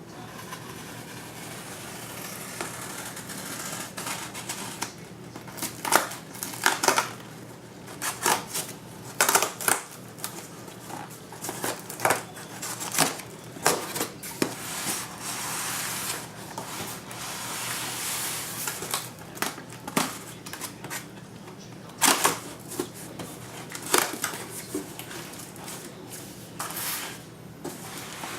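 A cardboard shipping box being opened and its packing handled by hand: irregular rustling and scraping with many sharp clicks, over a steady low hum.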